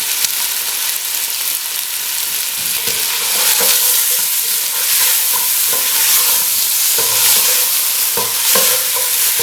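Chicken pieces and spices frying in hot oil in a pot, sizzling steadily while they are stirred, with light scrapes and knocks of the spoon against the pot from about two and a half seconds in.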